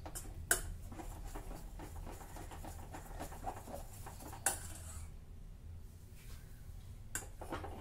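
Steel spoon stirring wheat flour and jaggery water into a batter in a stainless steel pot: continuous soft scraping, with a few sharp clicks of the spoon against the pot.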